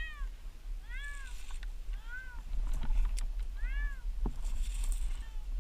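Domestic cat meowing four times, each call rising and then falling in pitch, from a cat stranded up a tree. A couple of sharp clicks come in the second half.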